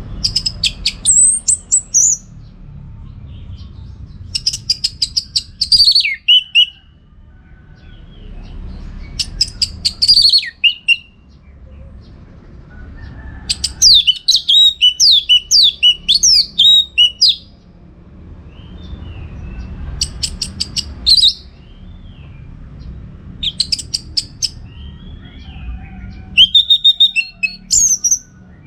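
Orange-headed thrush (anis merah) singing: loud phrases every few seconds, each a rapid series of sharp notes ending in falling whistles, with one longer, faster run of varied notes about halfway through. A low rumble lies underneath between phrases.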